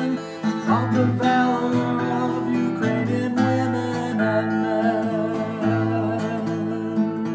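Instrumental music led by acoustic guitar, with notes held beneath it.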